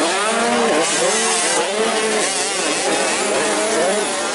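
Several motocross bikes' engines revving hard on the dirt track, overlapping. Their pitch climbs and drops repeatedly as the riders accelerate and back off.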